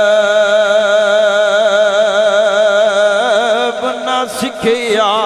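A man singing a Punjabi Sufi verse in a slow, drawn-out style, holding one long note with a wavering vibrato. About three seconds in it breaks into quick ornamented turns, with a brief pause for breath near the end.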